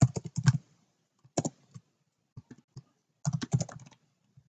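Computer keyboard typing in short bursts of keystrokes, a quick run of clicks at the start, another about one and a half seconds in and a longer one near the end, with a few single keystrokes between.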